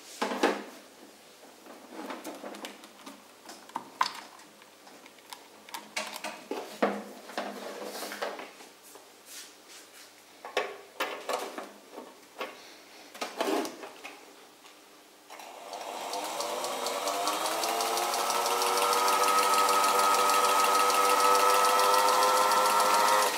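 Scattered clicks and knocks of plugging in and handling. Then, about fifteen seconds in, the belt-driven electric motor of a MERCEDES HA-1 Class 15 sewing machine starts and speeds up over a few seconds, rising in pitch, and settles into a steady run with the machine's mechanism going.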